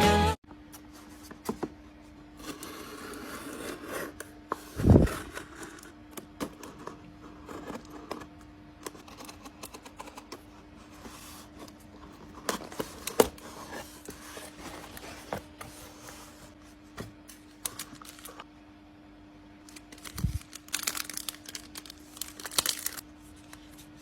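Stickers and their paper and plastic packaging being handled and opened: rustling, crinkling and tearing with scattered taps and a few sharp knocks, over a faint steady hum. Background music cuts off just after the start.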